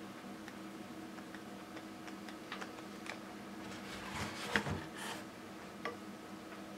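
Small plastic clicks and taps from a laser-printer toner cartridge being handled and taken apart with a screwdriver, with a short burst of louder clatter a little past halfway and one more click shortly after.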